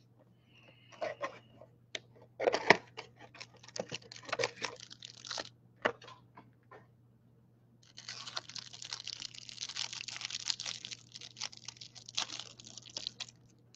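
Foil football-card pack wrappers being torn open and crinkled by hand: scattered crackles and tears at first, then about five seconds of continuous crinkling near the end.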